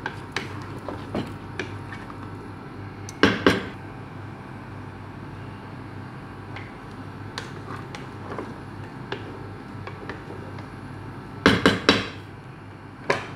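A utensil clinking and knocking against a cooking pot of chicken curry: light scattered clicks, with a louder clatter about three seconds in and a burst of several knocks near the end, over a steady low hum.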